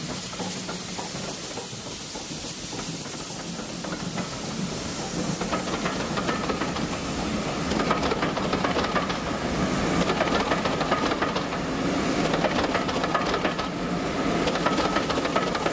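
Heritage railway passenger coaches rolling past at low speed, their wheels clattering over the rail joints in a steady run. From about five seconds in a thin, steady high squeal of wheels on the curve rides over the clatter.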